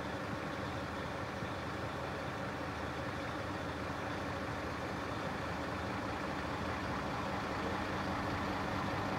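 Large mobile crane's diesel engine idling steadily, an even low hum that grows slightly louder near the end.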